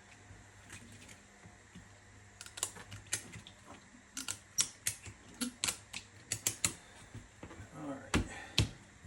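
Ratchet strap being cranked around a tractor tire, its ratchet giving a run of sharp, irregular clicks, about two to three a second, followed by two louder knocks near the end.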